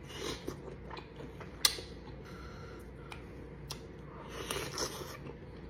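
Quiet close-up eating sounds of a sauced mussel being slurped and chewed, with a few small sharp clicks and taps scattered through and a soft wet stretch of chewing near the end.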